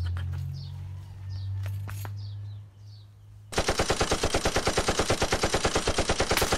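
A burst of rapid machine-gun fire, about a dozen shots a second for roughly three seconds, starting abruptly about three and a half seconds in. It is an edited-in sound effect laid over a shot from a single-shot pump air gun. Before it, faint bird chirps sound over a low steady rumble.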